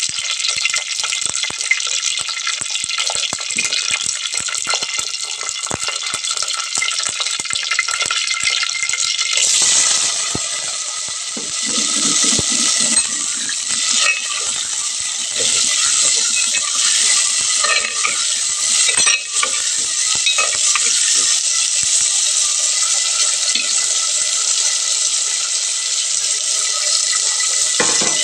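Hot oil sizzling in a clay pot, with seeds crackling in it as many sharp pops. About nine seconds in, chopped onions and tomatoes go into the oil, the sizzle grows louder, and a steel spoon stirs and scrapes them around the pot.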